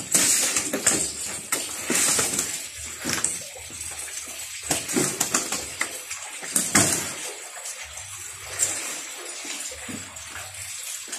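Water splashing and sloshing in a plastic crate as fish are handled in it, with irregular sudden splashes and knocks, loudest near the start and again about two-thirds of the way through.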